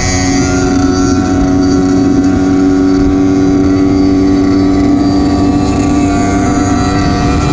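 Yamaha DT125X single-cylinder two-stroke motorcycle engine running loudly at a nearly steady pitch, held at constant revs.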